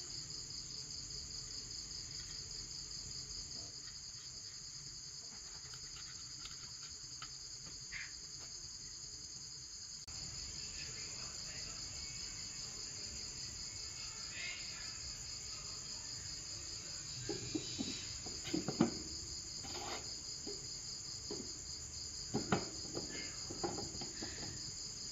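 Insects chirring in a steady, high, pulsing trill. Several light knocks of wood on wood come in the last third, as the turned wooden lid is handled and set onto the wooden jar.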